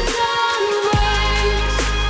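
Background pop-rock music, with the bass dropping out briefly and coming back in with a falling sweep about a second in, between sung lines.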